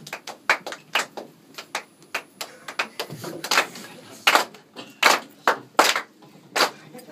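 Scattered hand claps from a small club audience, sharp separate claps at uneven spacing, a few of them loud and close.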